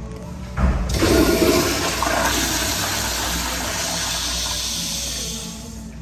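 Commercial American Standard Afwall toilet flushing on its flush valve: a sudden loud rush of water about half a second in that runs on steadily, then eases off near the end as the bowl drains.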